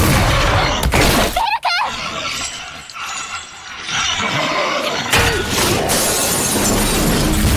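Anime fight sound effects: a loud crash with shattering, crumbling debris as a body slams into a brick wall, and a brief cry about a second and a half in. After a quieter stretch, loud heavy crashing noise returns from about four seconds in as the giant gorilla monster charges.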